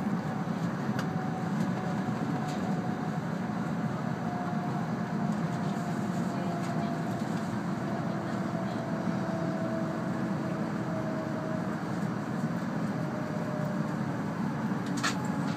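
Cabin noise inside an E2 series Shinkansen running on its elevated track: a steady rumble with a faint whine that slowly falls in pitch as the train slows on its approach to a station. A short sharp click near the end.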